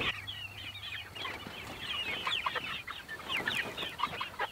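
A flock of chickens clucking and peeping, many short overlapping calls with no pause.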